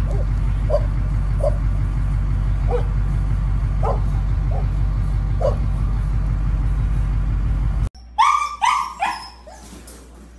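A dog barking in short, separate barks, roughly one a second, over a steady low rumble. Near the end, after a sudden cut, a husky puppy gives four short yelps that fall in pitch.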